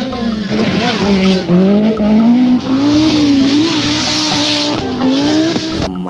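Rally car engine running hard at high revs, its pitch rising and falling, over a steady hiss of tyres on gravel.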